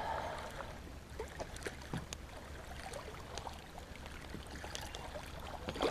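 Faint lapping and trickling of shallow water, with a few small light splashes and clicks.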